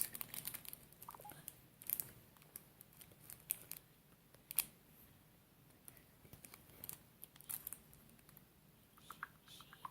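Faint, irregular clicks and taps, a handful of short sharp ones spread over several seconds, the clearest a little before the middle.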